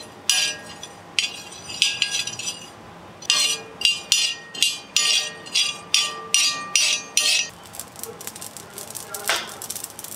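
A steel spoon scraping and clinking on a flat iron tawa as cumin seeds are stirred while they dry-roast, in a run of short strokes about two a second with a faint metallic ring. It eases off about three-quarters of the way through, and a louder clatter follows near the end.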